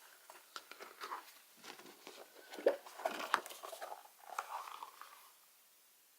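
Irregular rustling, crinkling and light taps of a standing desk calendar being handled, stopping about five seconds in.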